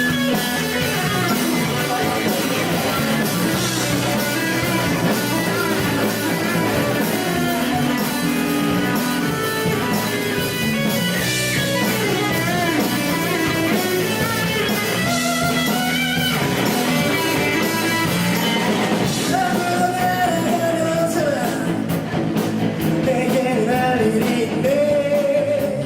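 A rock band playing live, with electric guitar over the rhythm section at a steady, full level, in a stretch with no lyrics sung.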